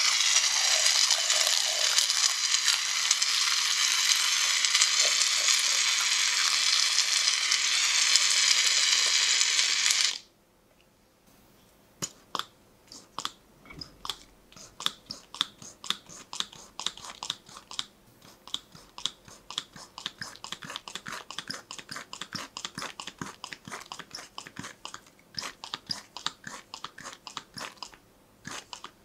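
An aerosol foam can spraying in a steady, loud hiss for about ten seconds, then cutting off. After a short pause, a pink foam pump bottle is pumped rapidly over and over, a quick run of short squirts a few times a second for most of the rest.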